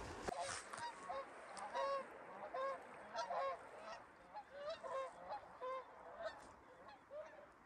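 A small flock of geese honking as they fly over, a dozen or so short honks from several birds, some overlapping, going on through the whole stretch.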